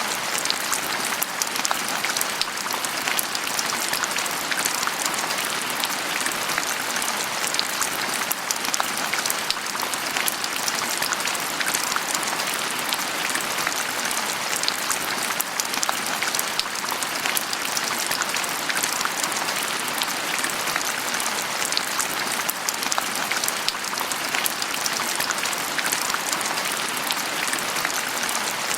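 Steady rain falling and pattering on a surface, a dense crackle of many small drops with no changes in strength.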